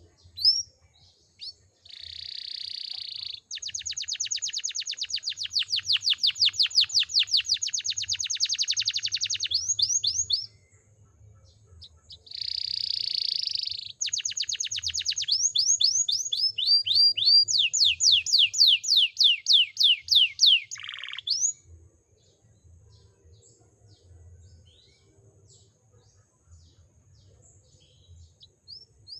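Domestic canary singing a trained, full song: two long phrases of rapid trills and rolled repeated notes, each several seconds long, separated by a short pause, then a quiet stretch before the next phrase starts at the end.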